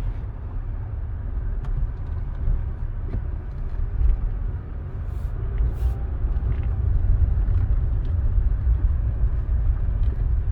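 Steady low rumble of a car heard from inside the cabin, with a few brief clicks about five to six seconds in.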